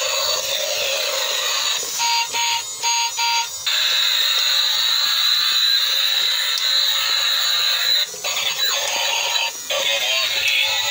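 A transforming robot toy car's small built-in speaker plays tinny electronic music and sound effects. About two seconds in come four short beeps, then a long steady high tone for about four seconds.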